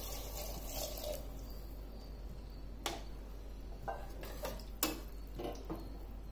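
Coconut milk poured into a pressure cooker of vegetables, followed by a metal ladle stirring the mix and knocking against the pot several times.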